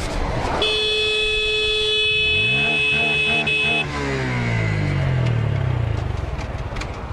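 A motorcycle horn sounds in one steady note for about three seconds, starting about half a second in, as a warning to a car pulling out into the bike. Under it the engine rises in pitch and then winds slowly down over the last few seconds, with wind rushing past.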